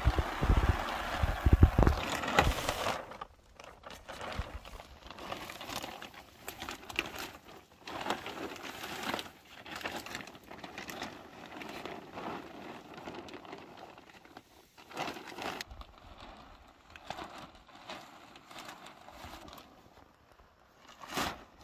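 Clear polythene sheeting rustling and crinkling as it is pulled back and handled over a garden bed, in irregular crackles. It is loudest over the first three seconds, with a heavy low rumbling, then goes on as softer, scattered crinkles.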